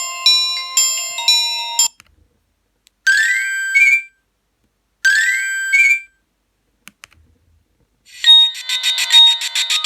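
Nokia 1280 mobile phone ringtones played one after another. A chiming electronic melody ends about two seconds in. Two short rising electronic sweeps follow, about two seconds apart, and near the end a new ringtone starts with a fast pulsing tone.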